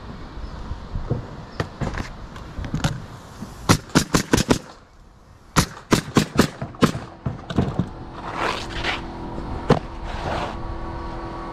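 Roofing nailer firing nails through asphalt shingles: two quick runs of about half a dozen sharp shots each, with a few single shots around them. A steady hum comes in about eight seconds in.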